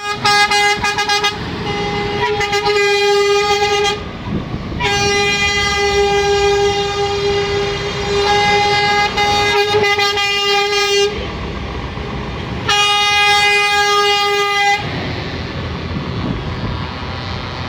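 Scania trucks driving past one after another, sounding three long, steady horn blasts. Their diesel engines and tyres rumble under the blasts and carry on alone near the end.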